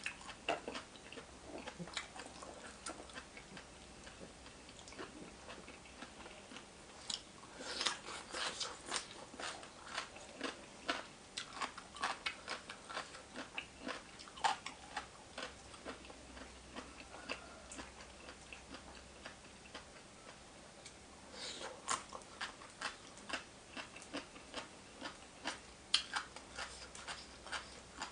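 A person chewing and smacking while eating papaya salad with raw seafood: a run of short, sharp mouth clicks and wet smacks, in bunches about a quarter of the way in and again near the end.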